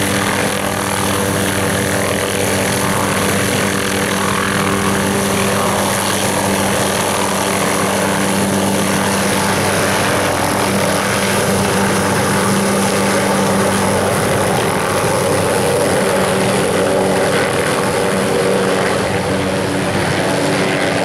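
Hughes 500 light helicopter's turbine engine and rotor running at full power as it lifts off, hovers low and climbs away overhead. The sound is loud and steady, with a droning engine tone that wavers as the helicopter moves.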